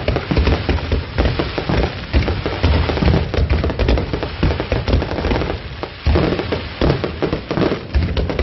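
Fireworks display: shells bursting in rapid succession, dense crackling over deep booms, with a brief lull a little past halfway.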